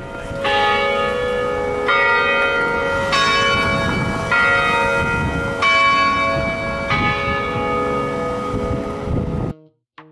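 Tower bells chiming a sequence of six strikes on different notes, each about a second and a quarter apart and ringing on over the others. The ringing cuts off abruptly near the end, where plucked-string background music begins.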